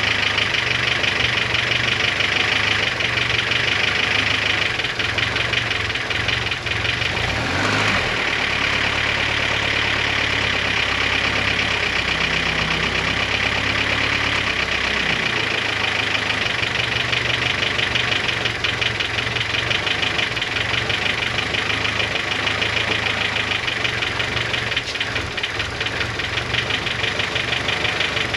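Boosted G23 engine idling with a rapid, steady ticking from the cylinder head: the cold-idle tick that goes away once the engine reaches operating temperature. The owner wonders whether the belt or the boost solenoid is behind it.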